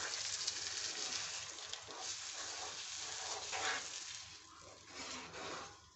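Wooden spoon stirring wet semolina and sugar in a nonstick frying pan, a soft sizzle with scraping strokes that fades toward the end.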